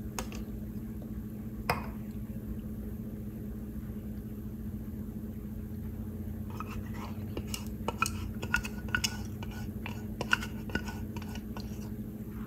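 Red silicone spatula scraping coconut milk from a glass measuring jug into a glass baking dish of soaked sticky rice, with a run of light clicks and taps on the glass from about halfway through. A couple of single knocks come in the first two seconds, over a steady low hum.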